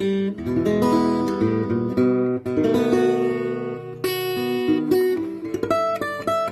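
1940s Stefano Caponnetto folk/gypsy-style acoustic guitar being played: a run of strummed chords and picked notes, with fast repeated strokes on held chords in the middle.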